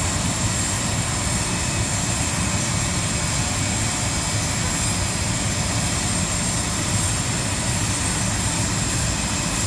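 Steady aircraft turbine whine over a low rumble, unchanging throughout, typical of the ramp beside a parked airliner.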